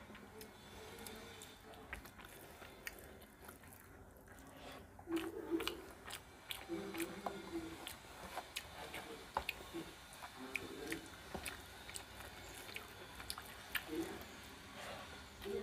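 Close-miked mouth sounds of a person eating rice and fish curry by hand: wet chewing and lip-smacking clicks, with a few short low hums, growing busier about five seconds in.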